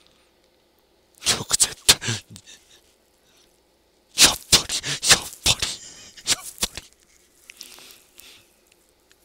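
A man laughing in short, breathy puffs close to the microphone, in two bursts about a second and about four seconds in, with a softer bit near the end.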